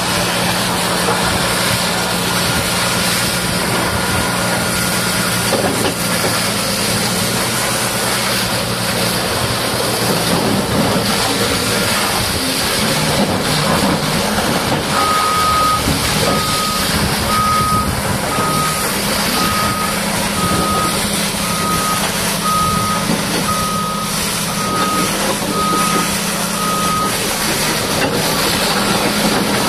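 Caterpillar D6R bulldozer's diesel engine running over a steady hiss, its note shifting about a third of the way in. From about halfway through, its reversing alarm beeps about once a second, a dozen times, then stops.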